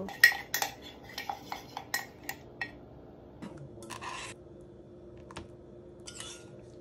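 A utensil clicking and tapping sharply against a jar and plate several times in quick succession, then a short rasping scrape of peanut butter being spread on sourdough toast about four seconds in, and a softer scrape near the end as blueberry jam goes on.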